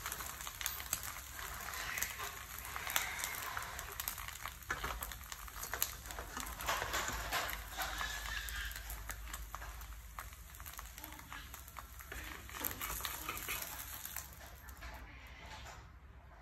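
Duck-egg omelette sizzling in oil in a nonstick frying pan, a fine steady crackle that dies away near the end as the egg is lifted out.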